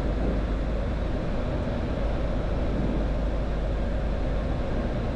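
Steady flight-deck noise of a Boeing 737-800 in flight: a continuous, even rush of airflow and engine sound, heaviest in the low range.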